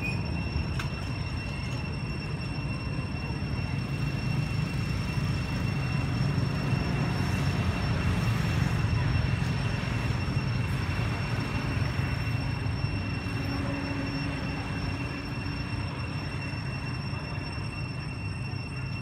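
Steady low rumble of outdoor background noise that swells a little around the middle, with a constant thin high-pitched tone above it.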